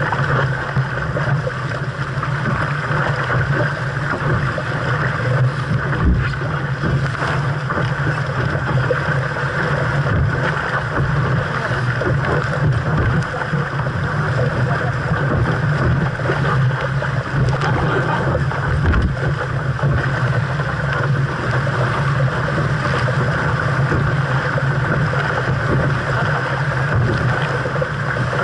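Steady rush of wind and water on a 470 sailing dinghy under way in a strong breeze, with wind buffeting the microphone. A couple of dull low knocks come about six seconds in and again near nineteen seconds.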